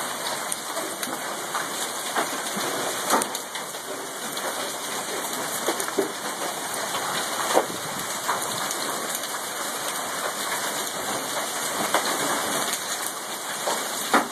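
Hail and heavy rain falling on the lawn, pavement and street as a steady hiss, with a few sharp clicks of hailstones striking hard surfaces.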